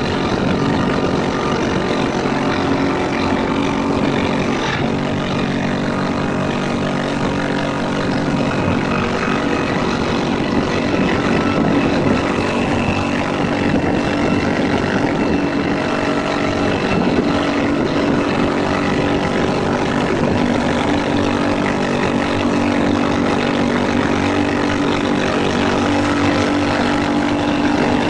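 Motorboat engine running at a steady pitch, with a constant hiss over it.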